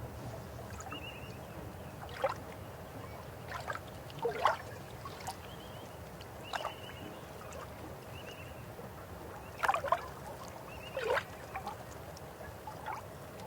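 River water flowing with a steady low rush, broken every second or two by louder gurgles and splashes.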